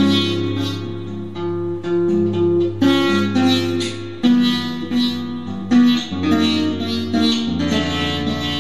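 Prepared acoustic guitar playing slow plucked notes over a low ringing bass note. Near the end a chord rings on and slowly fades.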